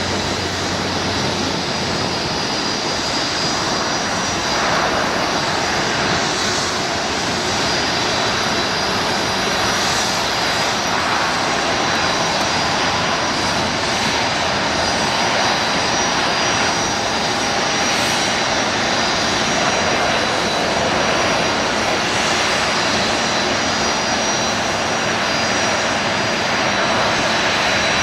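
Boeing 737-700 jet airliner landing, its CFM56 turbofan engines giving a steady noise with a thin high whine over it.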